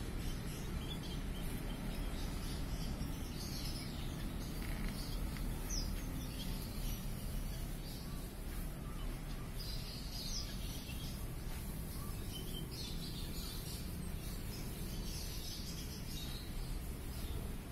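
Small finches of a walk-in aviary chirping: short, high chirps come scattered and irregular all through, over a steady low rumble.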